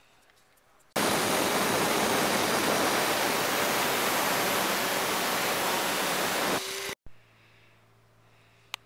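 Angle grinder with a cutting wheel cutting a V notch into the end of a stainless steel bicycle frame tube: a loud, steady grinding noise that starts abruptly about a second in and cuts off sharply near the end.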